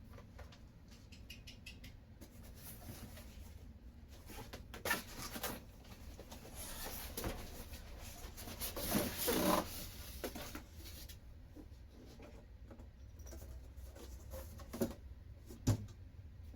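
Paper and cardboard packaging being handled: rustling and rubbing, loudest in a stretch a few seconds in, with scattered light taps and knocks.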